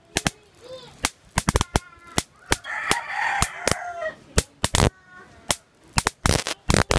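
Sharp, irregular snapping of high-voltage sparks jumping from the output wires of a homemade 3.7 V to 2000 V inverter to a screwdriver shaft, several snaps a second in clusters. A chicken calls in the background about halfway through.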